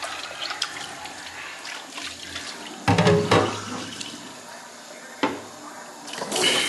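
Water running from a tap into a sink, a steady rush that gets louder near the end.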